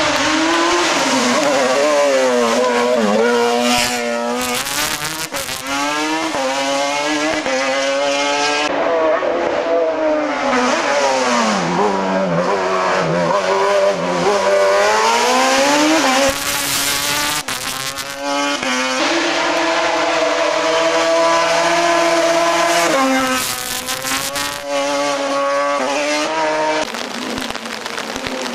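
Race car engine revving hard, accelerating and lifting again and again as it works through a slalom hillclimb, its pitch rising and falling repeatedly, with a spell of steady high revs about twenty seconds in.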